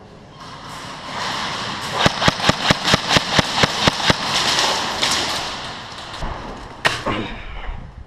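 Airsoft gun firing a quick string of about eleven shots, roughly five a second, over a steady rushing noise, with one more sharp shot near the end.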